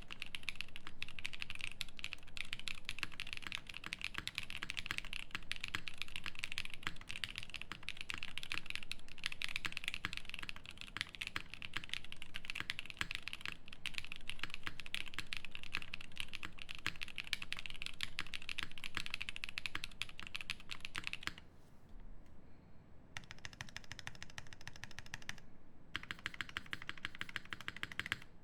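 Fast, continuous typing on a Terasu mechanical keyboard with lubed JWK Black linear switches with NK Cream stems, a polypropylene plate and GMK keycaps. The key sound changes about three-quarters through: a short break, then sparser, thinner clicks with a brief pause.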